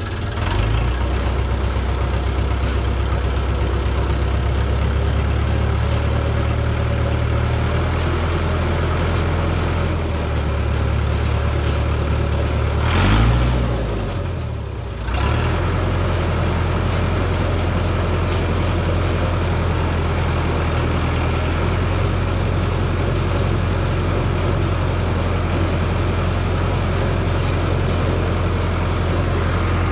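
Diesel farm tractor engine running steadily as it tows and drives a compost turner through a compost windrow. About halfway through, the engine note briefly bends and swells, then dips before settling back to a steady run.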